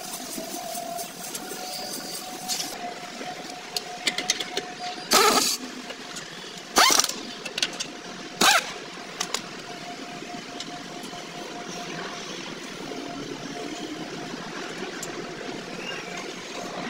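Pneumatic impact wrench firing three short bursts about a second and a half apart while running the wheel's lug nuts on, with light metallic clicks of the nuts and socket just before the bursts.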